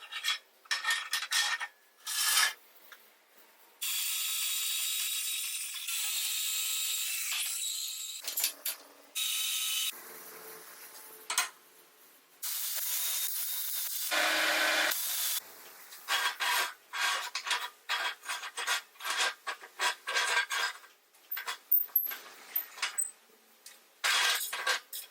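Workshop tool sounds in short edited cuts: runs of sharp clicks and knocks from handling metal parts, broken by several steady stretches of abrasive rubbing a few seconds long, with sudden starts and stops.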